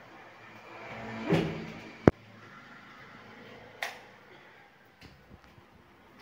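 A wooden door being handled and opened: a short swell of noise, then a sharp, loud click about two seconds in, and a fainter click near four seconds.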